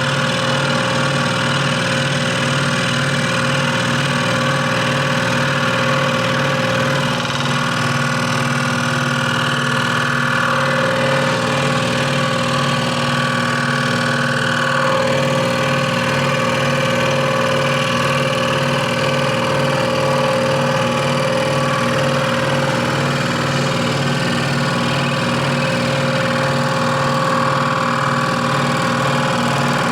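Electric scroll saw running steadily, its reciprocating blade cutting wood, with a low, even pulse.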